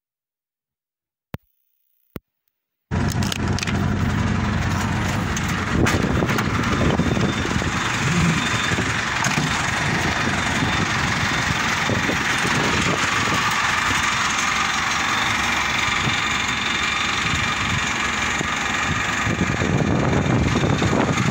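Two short clicks, then from about three seconds in a vehicle engine running steadily and loud, with a rough noisy hiss over it.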